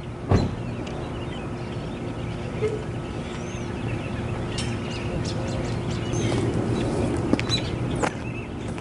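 Outdoor ambience of birds chirping in short high calls over a steady low hum, with one sharp thump just after the start.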